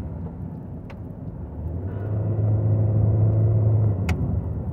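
Car road noise heard inside the cabin at highway speed: a steady low rumble that swells about two seconds in into a louder low hum. The hum stops abruptly with a sharp click near the end.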